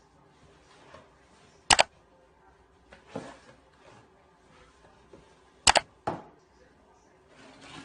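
Two loud, sharp double clicks about four seconds apart, with a few fainter short knocks between them.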